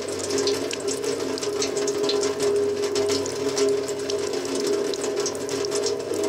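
Ambient drone soundscape: several steady, held tones with a scattering of irregular high clicks and crackles over them, like trickling or dripping.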